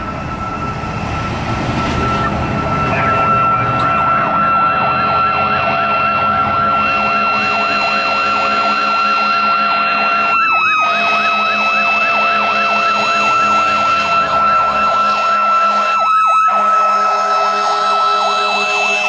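Fire truck sirens: a steady high siren tone held at one pitch, with a fast electronic yelp repeating several times a second underneath. The sound grows louder over the first few seconds as the squad truck approaches, then stays loud.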